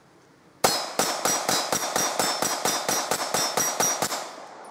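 Semi-automatic pistol fired in a rapid string of about fifteen shots, some four to five a second, with steel plate targets ringing as they are hit. It starts suddenly less than a second in and stops shortly before the end.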